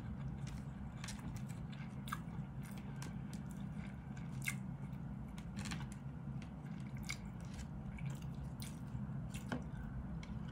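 A person chewing a mouthful of rice and ham up close, with scattered sharp clicks of a plastic spoon and fork against a plastic food container, over a steady low hum.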